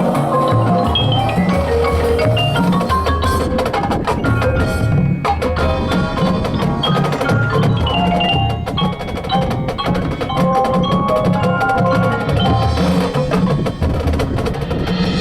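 Drumline front ensemble playing: mallet instruments such as marimba, xylophone and glockenspiel run quick melodic notes over a low bass line, with sharp clicks from light percussion.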